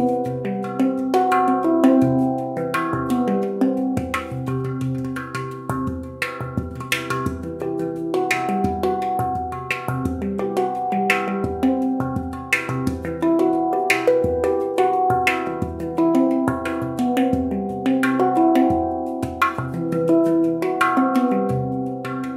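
Handpan tuned to the C Aegean scale (C ding with E, G, B, C, E, F#, G, B) played with the fingers: a flowing run of struck notes, several a second, each ringing on and overlapping the next.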